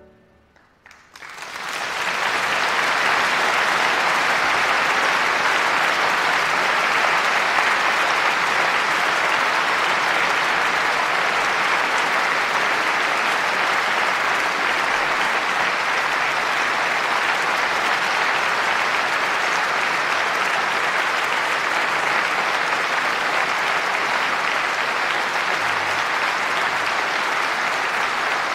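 Concert audience applauding, breaking out about a second in and quickly swelling to steady, full applause.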